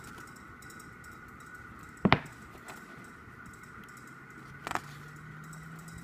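Two short, sharp clicks from handling a boxed K-pop album, a loud one about two seconds in and a softer one nearly five seconds in, over a faint steady hum.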